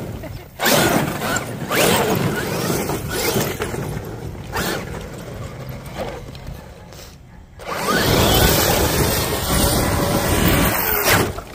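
Traxxas X-Maxx XRT electric RC monster truck driven hard on loose dirt: drivetrain whirring and tyres spraying dirt, with several sharp knocks as it lands and tumbles over. The sound eases off for a couple of seconds midway, then picks up again.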